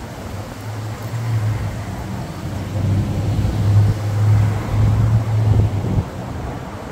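An engine running with a steady low hum, growing louder from about three seconds in and dropping away about six seconds in.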